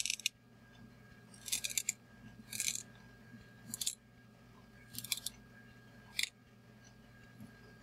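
Scissors snipping through the plush toy dog's fur fabric: six short crisp cuts, roughly a second apart.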